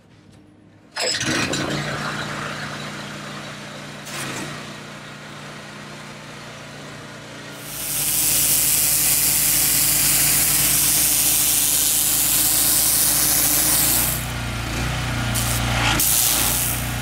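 Pressure washer's motor running steadily. About eight seconds in, the high-pressure spray cuts in with a loud hiss as it blasts marine growth off the sailboat's hull bottom. Near the end the spray goes off and on in short bursts.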